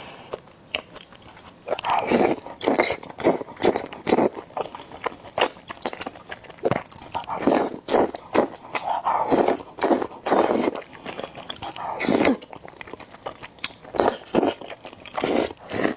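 Close-miked eating of spicy noodles: a quick, irregular run of bites and wet chewing.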